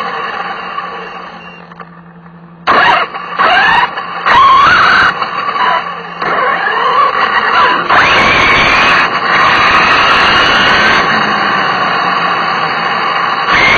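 Small high-revving nitro engine heard from an onboard camera: it dies down to a low level for the first couple of seconds. About three seconds in it comes back in short, sharp revs with quickly rising whines. From about six seconds it runs hard at high revs, its whine rising again near eight seconds.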